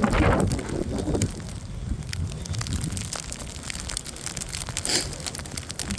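Footsteps crunching through fresh snow, an irregular run of crunches.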